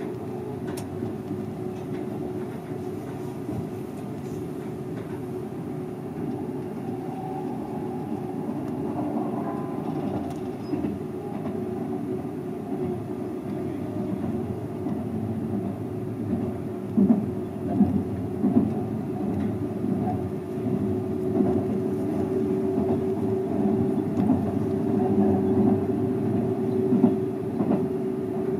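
Seibu 001 series Laview limited express train running at speed: steady rolling noise with a steady hum, and occasional clicks of the wheels over rail joints from about halfway on. It grows slightly louder toward the end.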